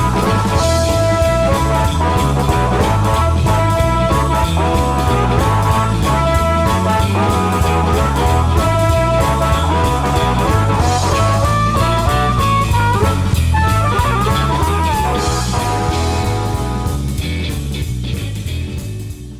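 Amplified blues harmonica played through a homemade JT-30 bullet mic with a CM element and slapback delay, over a blues backing track with bass and drums. The music fades out near the end.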